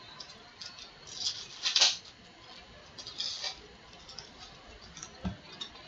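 Foil wrapper of a Topps baseball card pack crinkling and tearing as it is handled and opened by hand, in a few short crackly bursts, the loudest about two seconds in. A soft knock near the end.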